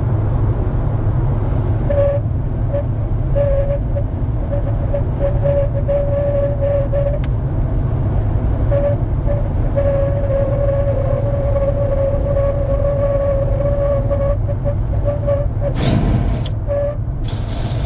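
Chery Tiggo 4 Pro whistling in a crosswind while driving: a thin, steady-pitched whistle that comes and goes in stretches of a second to several seconds over loud road and wind rumble. A brief louder rush of noise comes near the end.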